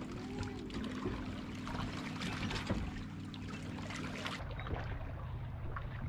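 Lake water lapping against shoreline rocks under a steady low hum, with scattered faint wooden clicks of a kendama being played.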